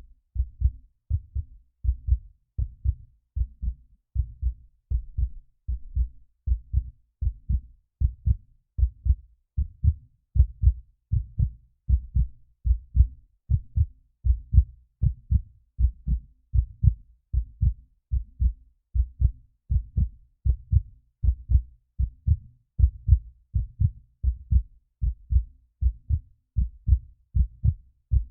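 Human heartbeat sound effect: a steady, regular lub-dub of low double thumps, a little more than one beat a second.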